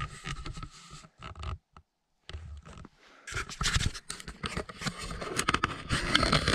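Footsteps crunching and scraping in snow, irregular. The crunching breaks off briefly about two seconds in, then comes back louder and denser from about three seconds in.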